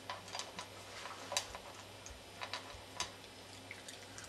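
Small dog eating dry kibble from a plastic bowl: irregular crunches and clicks of pellets, the loudest about a second and a half in and again at three seconds.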